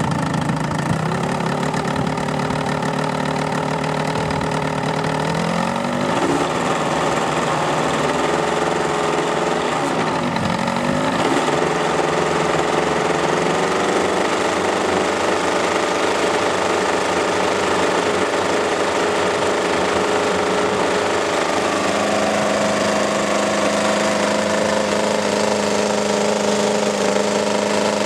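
RR258 twin-cylinder model-aircraft engine with belt-drive reduction, turning a four-blade P-51-style scale propeller, being run up on a test stand. It runs at a low speed, rises about five seconds in, dips briefly and picks up again around ten seconds, then climbs to a higher steady speed for the last third.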